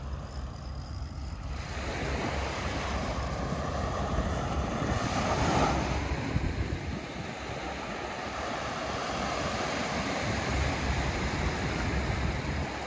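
Small waves breaking on a sandy beach, with wind rumbling on the microphone; the surf swells louder about halfway through.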